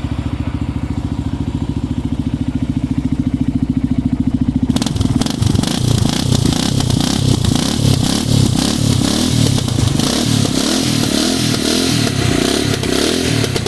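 Kawasaki KLR 650's single-cylinder engine running through an aftermarket muffler, idling steadily, then from about five seconds in revved repeatedly in quick throttle blips.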